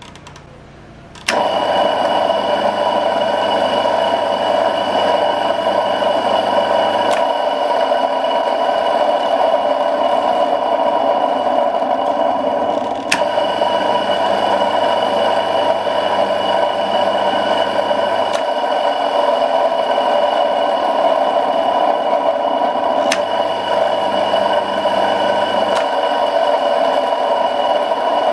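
A contactor pulls in and an electric motor starts about a second in, then runs with a steady hum; the motor is being switched on through the contactor by a mechanical time switch. A handful of sharp clicks come at irregular intervals over the running motor.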